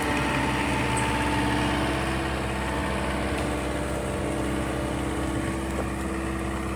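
John Deere 325G compact track loader's diesel engine running steadily, an even engine drone with no change in speed.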